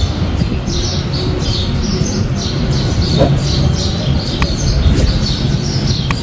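Birds chirping over and over, about two short high chirps a second, over a low steady background sound.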